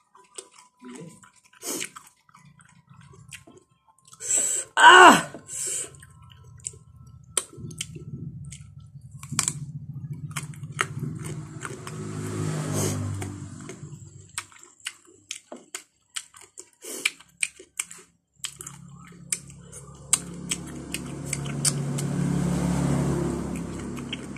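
Close-up chewing and lip-smacking of soft ripe papaya, with many small wet clicks and a brief voiced sound about five seconds in. A low steady hum comes in through the middle and again, louder, near the end.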